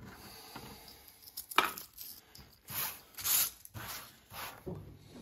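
A hand scraping and brushing dry debris across the bare, rusty sheet-metal floor of a Volkswagen split-window bus: a sharp knock about a second and a half in, then several short scratchy strokes.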